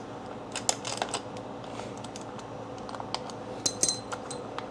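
Scattered light clicks and taps of a hand tool on the 10 mm bolt that holds an ignition coil, in two small clusters about a second in and near the end, over a faint steady hum.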